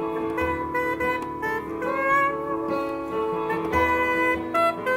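Instrumental music: a saxophone plays the melody in held notes over a keyboard and hand-drum accompaniment.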